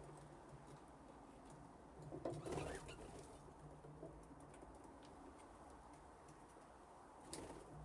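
Budgies in an aviary, quietly calling, with a brief louder call about two seconds in and a smaller one near the end, over a faint steady hum.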